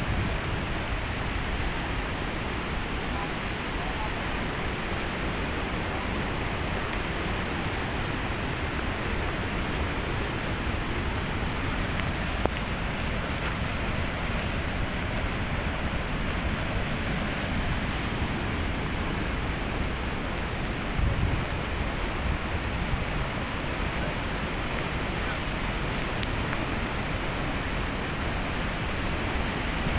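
Muddy floodwater rushing through a washed-out road and cascading over the broken edge of the pavement into the eroded gully, a steady rushing noise.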